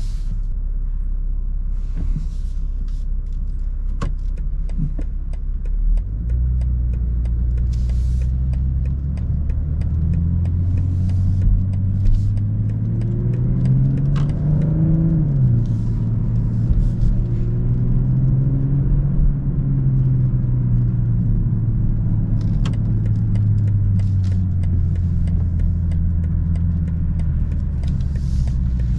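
BMW M240i xDrive's turbocharged 3.0-litre straight-six pulling under acceleration, its low note climbing steadily in pitch, then dropping sharply at an upshift about halfway through before settling into a steady cruise that slowly eases lower.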